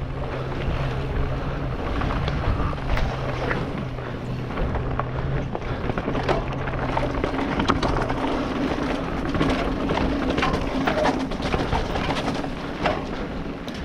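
Mountain bike riding fast down a dirt trail: a steady rushing of tyres over dirt and air over the helmet-mounted microphone, with many sharp rattling knocks as the bike hits roots and bumps.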